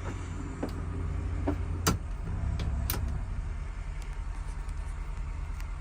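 Trawler yacht's diesel engine running steadily at about 1,000 RPM in reverse, a low even hum as the boat backs down hard against its set anchor. A few sharp clicks sound over it, the clearest about two seconds in.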